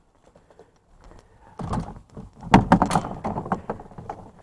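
Rummaging through salvaged drinks: cans and drink packs knocking, clattering and rustling as they are moved about, starting about a second and a half in and busiest near the middle.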